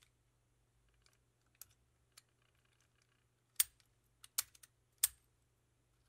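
Aluminum padlock being worked by hand: a series of sharp metallic clicks as the steel shackle latches shut and the key turns in the cylinder. The loudest clicks come about three and a half and five seconds in.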